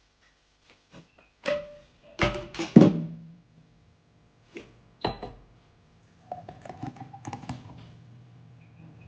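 Several sharp knocks and thuds, some with a short ring, loudest two to three seconds in, followed by quieter clatter over a low steady hum.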